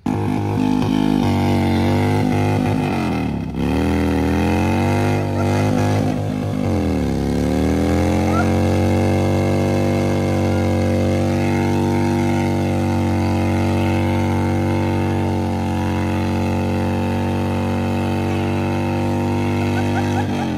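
V-twin engine of a touring bagger motorcycle revved hard in a burnout, spinning the rear tyre. The revs dip and climb again twice in the first seven seconds, then hold high and steady.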